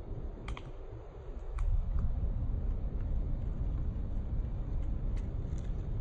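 Outdoor ambience: a steady low rumble that gets louder about a second and a half in, with a few sharp, scattered clicks.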